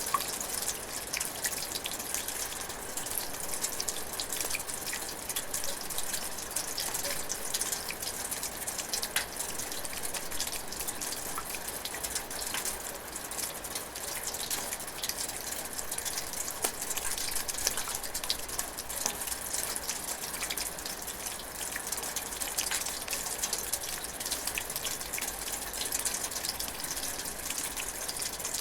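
Rain water dripping and splashing inside a metal gutter, a dense steady patter of drops with sharper individual drips standing out.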